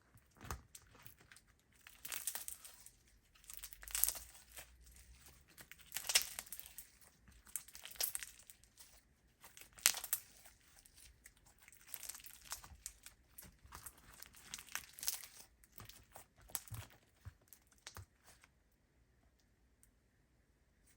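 Slime being squeezed and stretched by hand, giving irregular crackling pops. The popping stops a couple of seconds before the end.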